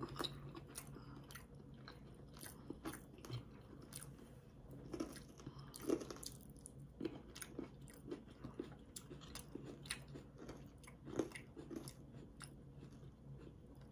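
People chewing food close to the microphone: faint, irregular mouth clicks and soft crunches, several every second.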